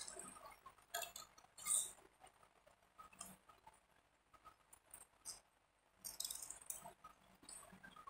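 Scissors cutting through a sheet of paper: faint, scattered crisp snips and paper rustles, with a louder one a little under two seconds in and a cluster around six seconds.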